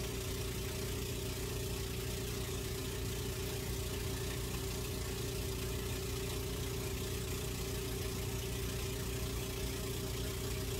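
A steady mechanical hum with a low rumble and one constant mid-pitched tone, unchanging throughout, as from an engine idling.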